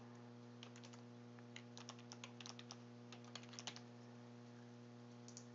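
Faint typing on a computer keyboard, a quick run of keystrokes lasting about three seconds, over a steady low hum.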